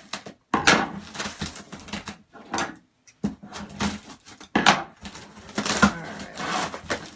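Cardboard box being opened and rummaged by hand: irregular scraping, tearing and crinkling of cardboard and plastic packaging as items are pulled out.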